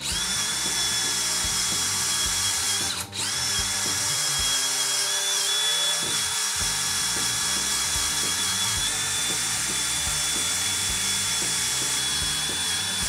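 Craftsman cordless drill spinning a foam polishing pad against an aluminium bicycle crank arm: a steady high motor whine that drops out for a moment about three seconds in, then runs on steadily.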